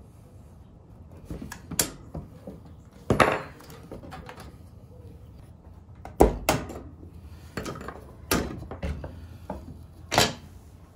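A dishwasher top-rack roller hinge being worked apart by hand: scattered clicks and knocks of its pieces, half a dozen sharper ones, with soft handling noise between.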